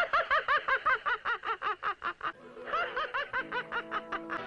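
Cartoon voice of Felix the Cat laughing: a fast run of high, bouncing 'ha-ha' syllables, about five a second. It breaks off briefly near the middle and starts again.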